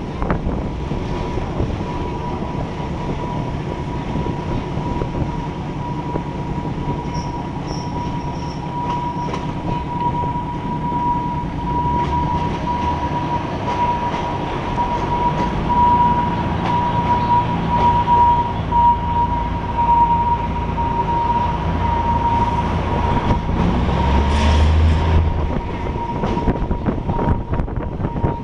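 Commuter train running along the track, heard from an open carriage window: a steady rumble of wheels on rail with one high squealing tone held almost throughout. A brief louder rush comes about three-quarters of the way through.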